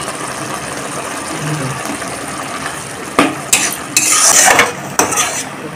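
Metal spatula stirring thick mushroom gravy in a metal kadai over a low sizzle, then loud scrapes and clanks of the spatula against the pan from about three seconds in.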